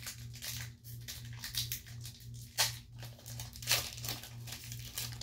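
Foil wrapper of a Pokémon booster pack being torn open and crinkled: a run of rustles and crackles, with two louder crackles a little past halfway.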